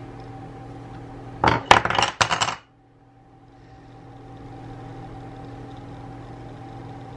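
A quick clatter of about half a dozen hard clinks about a second and a half in, as lure mould pieces are handled and set down on the worktop. A steady low hum sits underneath.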